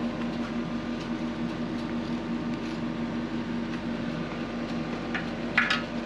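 Yanmar ViO55 mini excavator's diesel engine running at a steady idle. A brief sharp clank sounds near the end.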